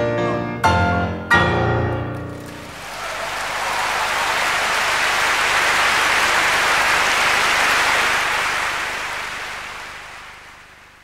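Grand piano playing the closing chords of a piece: two final chords struck about half a second apart, ringing out. Audience applause then swells, holds steady and fades away near the end.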